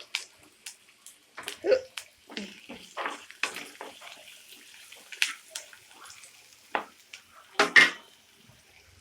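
Onions, green chillies and curry leaves frying in hot oil in a pan with a light sizzle, while a spatula stirs and scrapes the pan in irregular strokes. The loudest scrape comes near the end.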